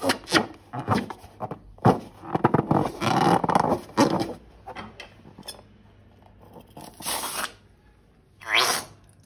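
Close-up handling of slime and rubber balloons: a dense run of crackling clicks and squishing for about four seconds, a short noisy burst around seven seconds, and a short rising squeak just before the end.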